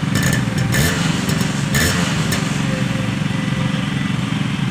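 Yamaha RX135's single-cylinder two-stroke engine running at a steady idle with a choppy exhaust note. Its pitch swells briefly twice, about one and two seconds in.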